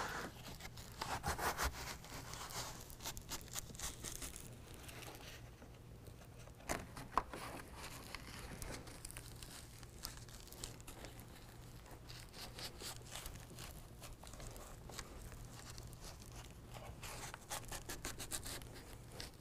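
Faint rustling and rubbing of a carpet bed liner being pressed by hand onto Velcro strips, with scattered small scrapes and taps.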